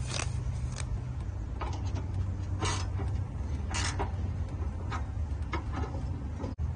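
Ratchet spanner clicking in short strokes, roughly one a second, as bolts are tightened up by hand. A steady low hum runs underneath.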